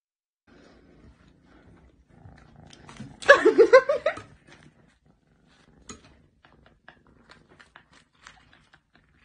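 A kitten growling over a piece of toast in its mouth: about three seconds in, one loud warbling growl that wavers up and down several times in quick succession for about a second. Faint scattered clicks of chewing follow.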